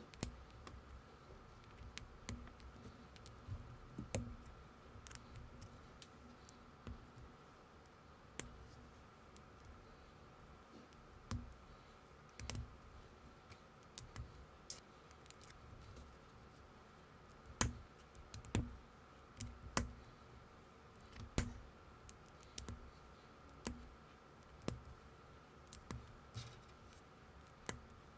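Small plastic building bricks clicking and tapping as they are handled and pressed together: irregular sharp clicks, with several louder snaps about two-thirds of the way in. A faint steady hum sits underneath.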